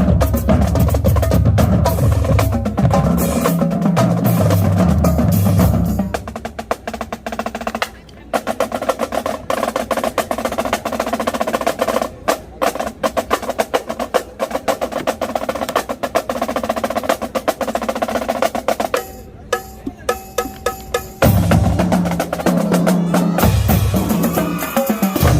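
Marching drumline playing a battle cadence: snares, tenors and tuned bass drums. For the first six seconds or so the full line plays with bass drum runs stepping through their pitches, then the snares and tenors play fast strokes on their own, thin out briefly, and the full line with bass drums comes back in about 21 seconds in.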